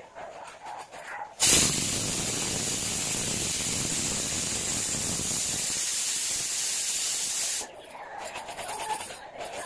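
Stainless-steel pressure cooker venting steam through its weight valve: one loud, steady hiss that starts abruptly about a second and a half in and cuts off about six seconds later. It is the cooker's whistle, the sign that it has come up to full pressure.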